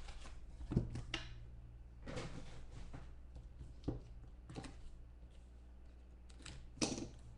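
Trading card box and packaging being handled on a table: scattered knocks and clicks, with a short rustle of packaging about two seconds in, over a low steady hum.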